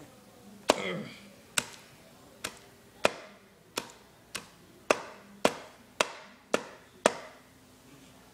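About eleven sharp smacks, roughly two a second, of a hard plastic case striking a cockroach against a wet hard floor, the first the loudest.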